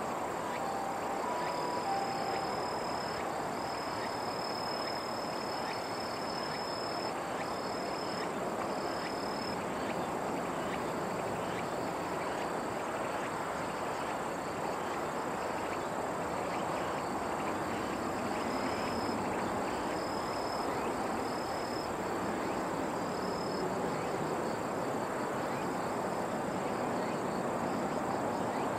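A dense, steady chorus of calling animals. A high, thin call repeats in short bursts over it, for the first ten seconds or so and again about two-thirds of the way through.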